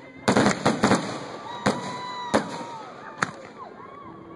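Fireworks going off: a rapid cluster of bangs and crackles in the first second, then three more single sharp bangs less than a second apart.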